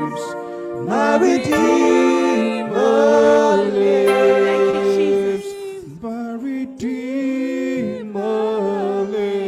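Worship singing: slow sung phrases with long held notes.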